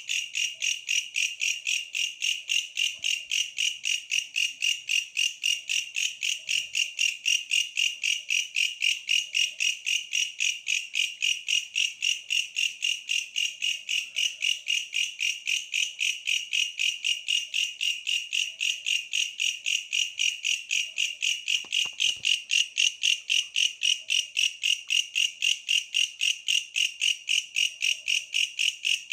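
A tree grasshopper (katydid-type insect) singing a steady, rhythmic chirp of about four high-pitched pulses a second, without a break.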